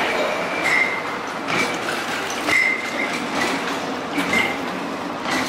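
Tram passing at close range: wheels rolling and clattering on the track, with short high squeals from the wheels on the rails, about one a second.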